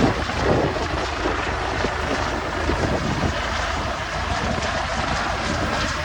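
Firefighting helicopter flying, its rotor and engine making a steady drone.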